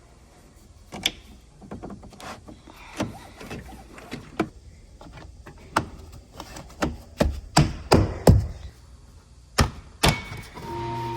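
Irregular knocks and clicks of hard plastic interior trim panels and hand tools being handled inside a pickup cab during seat belt work, the loudest few grouped about two thirds of the way through. Near the end a steady held tone starts.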